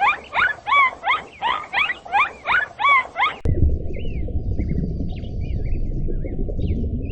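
An animal's repeated squeaky calls, each rising in pitch, about three a second, cut off suddenly a little over three seconds in. A low rumbling noise follows, with faint bird chirps over it.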